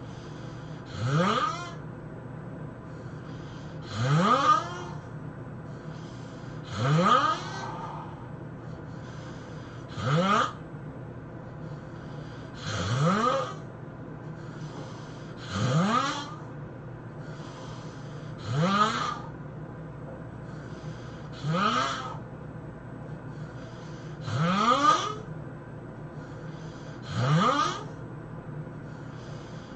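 A sleeping person snoring heavily in a regular rhythm, about one loud snore every three seconds. Each snore rises in pitch as the breath is drawn in, with fainter breaths out between them.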